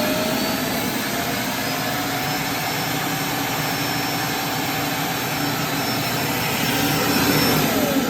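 Roomba's self-emptying Clean Base running loudly, its suction motor pulling dirt out of the docked robot's bin. A steady rushing whir carries a whine that starts falling away near the end as the motor spins down.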